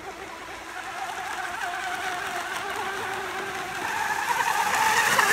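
24-inch electric RC hydroplane running flat out, its Gforce 3674 2200kv brushless motor and propeller making a wavering whine over the hiss of its spray. The whine rises and grows louder in the last second or so as the boat comes close.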